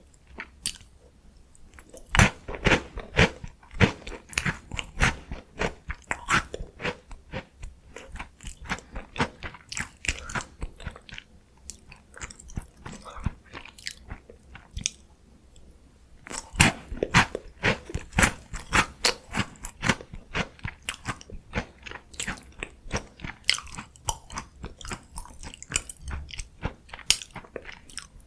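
Close-up chewing of crunchy Korean chocolate snacks (Home Run Ball or Choco Songyi): a loud bite about two seconds in, followed by rapid crunching that thins out. A second bite about halfway through starts another run of crunching.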